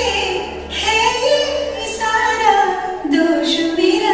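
Recorded film song with a woman singing a slow, gliding melody in long phrases, played over a stage sound system.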